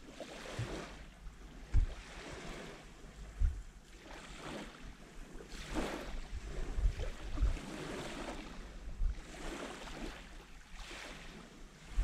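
Small sea waves lapping onto a sandy shore, each ripple washing in with a soft hiss every couple of seconds. Several short low thumps of wind buffeting the microphone stand out above the water.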